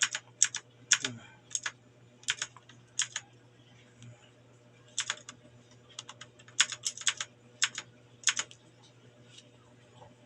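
Keys being pressed on an HP GK100F mechanical keyboard: sharp clacks, some single and some in quick runs of two to four, with pauses of a second or more between them.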